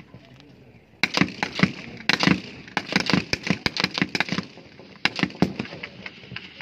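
Rifle gunfire at a firing range: a rapid, irregular string of shots from about a second in, a short pause, then a few more shots.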